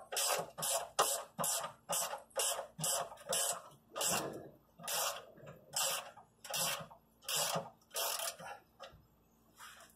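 Ratcheting wrench loosening a nut on a battery-tray hold-down, the ratchet rasping on each back-swing. The strokes come about two or three a second at first, then spread out and stop near the end.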